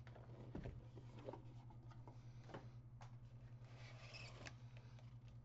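Faint handling sounds of cardboard and paper packaging: a few light taps and a soft rustle, over a steady low electrical hum.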